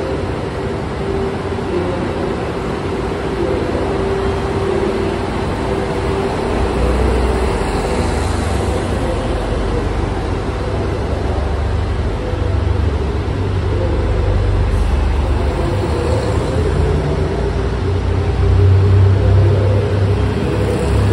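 Diesel railcar engines of the KiHa 183-1000 'Aso Boy!' train pulling away, a low rumble that builds as the cars roll past and is loudest near the end.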